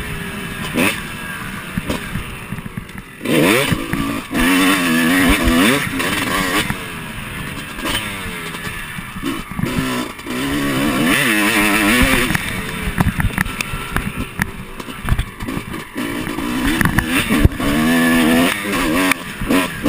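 Dirt bike engine revving hard as it is ridden at speed, its pitch climbing and dropping back over and over.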